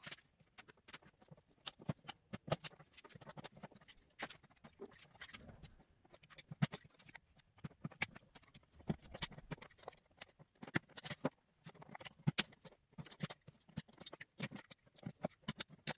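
Utility knife blade cutting and scraping into the plastic of a dirt bike fuel tank around a stripped shroud nut: faint, irregular clicks and short scratches.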